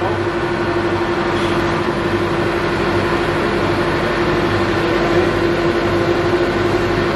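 1942 Niles vertical lathe running with an empty table: its drive and gearing make a steady mechanical noise with a constant whine.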